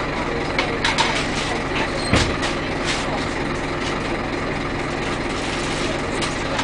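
Scania OmniLink single-deck bus heard from inside while it drives: a steady engine drone and running noise, with scattered clicks and rattles and a sharper knock about two seconds in.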